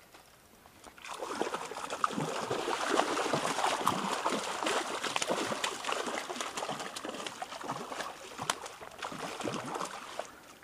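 A hooked trout thrashing and splashing at the water's surface: a dense run of rapid splashes that starts about a second in and dies away near the end.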